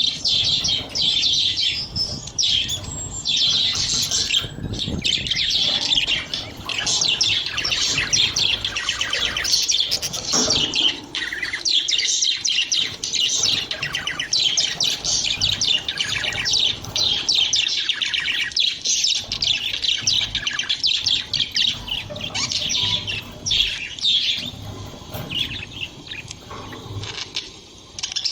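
Budgerigars chattering and chirping without a break: a dense, overlapping warble of several birds.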